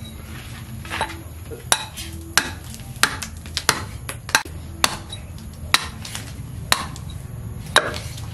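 Hatchet chopping into a standing wooden post: about a dozen sharp strokes of the blade into the wood, one every half second to a second, the hewing that roughs out the block.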